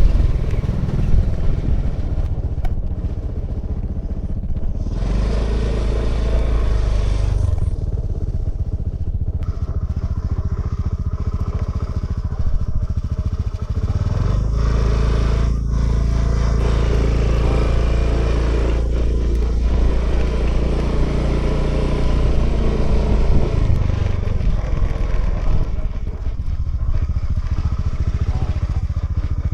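A 2018 Honda Vision scooter's small single-cylinder engine running under way, heard from the rider's position along with wind and road noise. The engine note shifts as speed changes and runs steady for a long stretch in the middle. A brief hiss rises over it about five seconds in.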